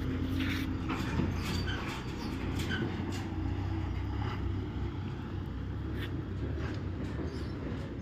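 Diesel engine of a loaded lorry running as it pulls slowly away, a low steady drone with scattered knocks and clatters.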